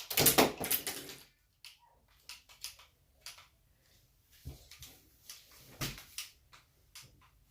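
Nerf dart blaster fired once, a loud short burst at the start, followed by scattered light clicks and knocks from handling.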